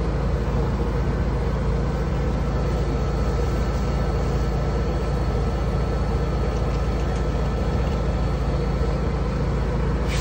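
Steady drone of a food truck's running machinery: a constant low hum with a faint high, steady whine on top.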